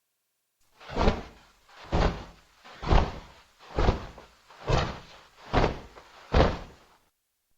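Designed griffin creature sound effect: seven heavy, whooshing thumps, evenly spaced about a second apart, starting just under a second in and stopping about a second before the end.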